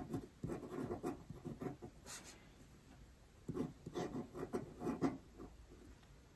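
Pen tip scratching on paper as Chinese characters are written stroke by stroke: two runs of short, quick strokes with a brief pause between them.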